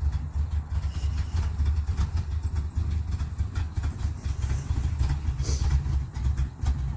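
1951 Chevrolet pickup truck's engine running with a deep, pulsing low exhaust note as the truck drives slowly past.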